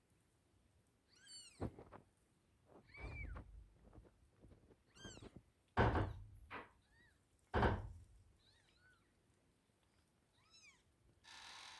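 Newborn kittens mewing: repeated short, high-pitched mews that rise and fall, with a few loud thuds among them. A steady hiss starts near the end.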